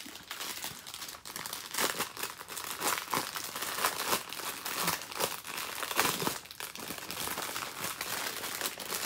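Small plastic bags of diamond painting drills crinkling as they are handled and shuffled, in a steady run of irregular crackles.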